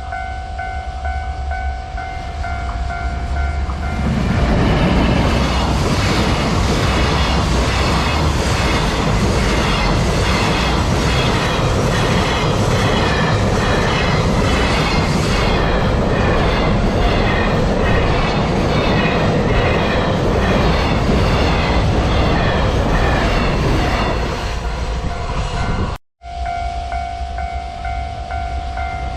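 A level-crossing warning bell rings steadily. About four seconds in, a freight train hauled by a JR Freight EF210 electric locomotive passes for some twenty seconds, its wheels clattering rhythmically over the rail joints and drowning out the bell. As the train fades near the end, the bell rings out again.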